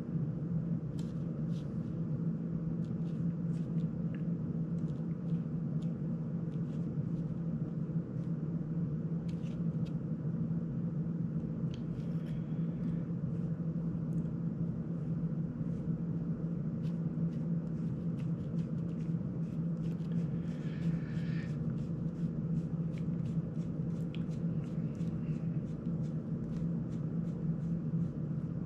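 Light scattered clicks and ticks of a small precision screwdriver working tiny screws on a small FPV drone's frame, over a steady low hum; the clicks come thicker near the end.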